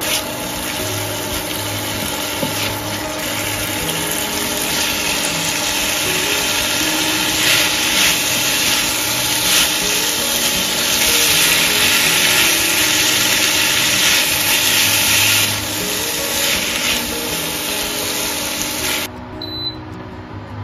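Chicken liver and gizzard sambal goreng frying in a pan and sizzling steadily while it is stirred with a spatula. The sizzle stops abruptly near the end.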